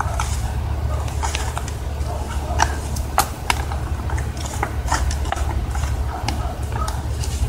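Irregular clicks from the Worx WG305.1 electric chainsaw's plastic side-cover knob as it is turned by hand to loosen the cover, over a steady low hum.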